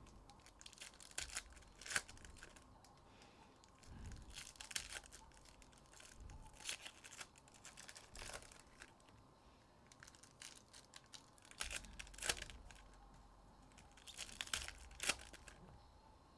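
2023 Upper Deck Goodwin Champions foil card-pack wrappers being torn open and crinkled while the cards are handled, in short crackling spells every couple of seconds.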